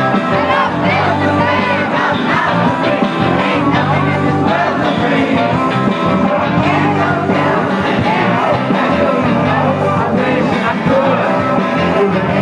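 Live rock band playing loud, with drums and a lead singer singing over the band.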